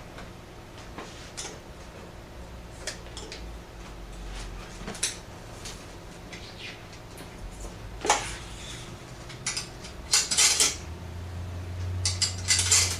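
Scattered metallic clicks and clinks from an antique Western Electric 3-slot payphone being handled, over a low hum. The clinks come more often in the second half.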